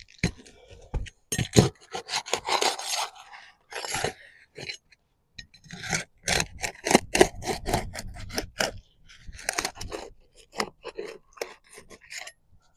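Asphalt roof shingles being unsealed and pried up by hand: repeated scraping and crackling as the sealed tabs are broken loose, in irregular strokes.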